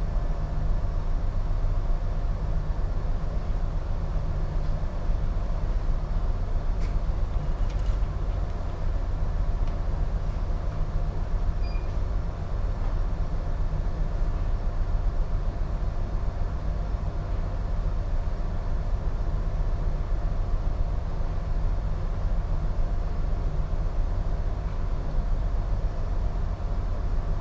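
Steady low drone of a container ship's engine and machinery heard on the bridge, with a few steady hum tones under it. A faint short beep sounds twice, once right at the start and again about twelve seconds in.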